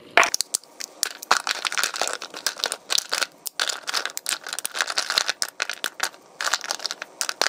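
Milk chocolate bars being snapped apart by hand into a plastic bowl: a quick, uneven run of crisp snaps, with broken squares clicking against each other and the bowl.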